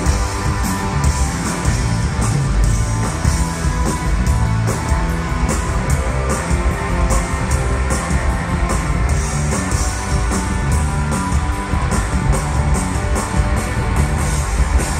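Rock band playing an instrumental passage on stage: electric bass, electric guitar and drum kit, with steady cymbal strokes and no vocals.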